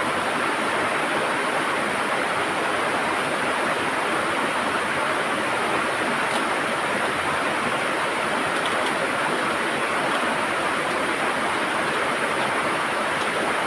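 River water rushing and gurgling over rocks, a steady unbroken flow.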